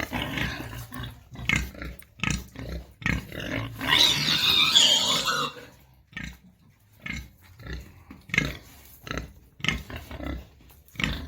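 Pigs grunting in short separate bursts, with one louder, longer cry about four seconds in.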